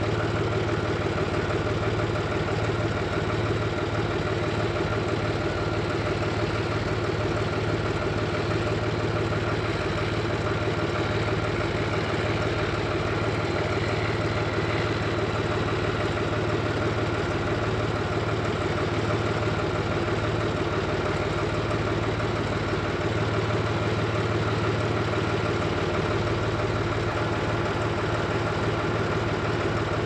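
Case International combine's diesel engine running at a steady pitch as the machine drives slowly up with its corn head attached.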